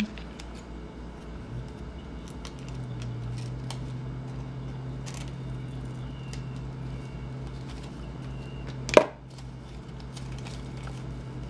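Scissors snipping notches in a folded paper doily, with light paper handling and one sharp clack about nine seconds in. A low steady hum runs underneath from a couple of seconds in.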